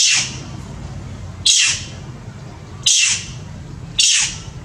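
Long-tailed macaque shrieking in pain while its wound is cleaned and sprayed with antiseptic: four short, high cries, each falling in pitch, about a second and a half apart, over a steady low hum.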